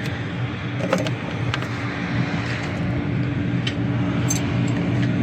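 A few sharp metallic clicks and taps of hand tools working on the engine's intake manifold bolts, over a steady low hum.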